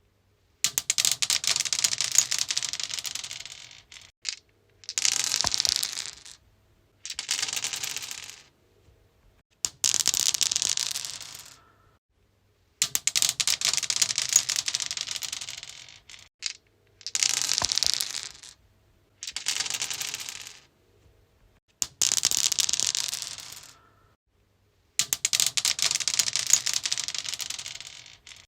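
Dice rolling and clattering on a stone surface, thrown again and again: about nine separate rolls, each a rattle of quick clicks lasting one to three seconds that dies away, with short silent gaps between.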